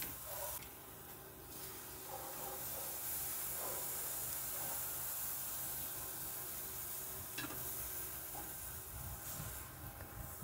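Split lobster halves sizzling on a hot charcoal grill grate, a steady hiss that dips briefly near the start and eases off near the end.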